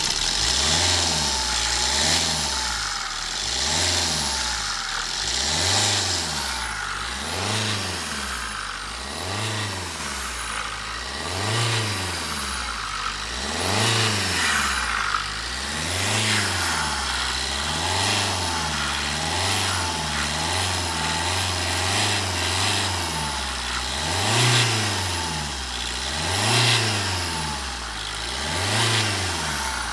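Opel Astra H's 1.3 CDTI Z13DTH four-cylinder diesel revved over and over, about once every two seconds, the engine note rising and falling each time with a high turbo whistle sweeping up and down. The owner hears a strange sound from the turbocharger at high rpm, which he takes for friction between its parts, besides a vibration from the plastic engine cover.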